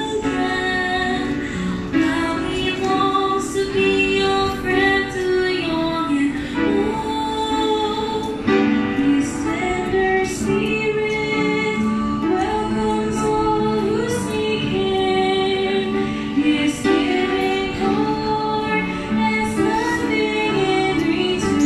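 A youth vocal group, mostly girls' voices, singing a hymn together with piano accompaniment.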